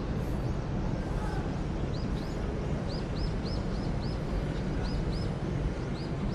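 Steady low outdoor rumble, with a small bird chirping: from about two seconds in, a string of short high chirps comes in quick little clusters.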